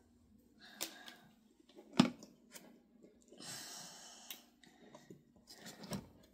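Small clicks and taps of jumper wires being handled and plugged in on the board and cardboard lid, with one sharp click about two seconds in. A breathy hiss lasts about a second, starting about three and a half seconds in.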